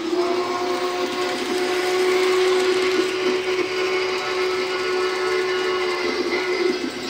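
Large-scale model steam locomotive running along its overhead track. It gives a steady, even-pitched whine over a hiss of wheels on rail, with a brief dip near the end.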